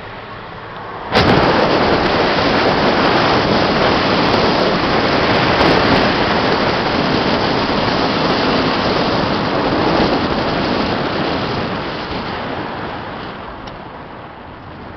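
Heavy wind rushing over the microphone of a camera held outside the window of a moving car, starting suddenly about a second in and easing off over the last few seconds.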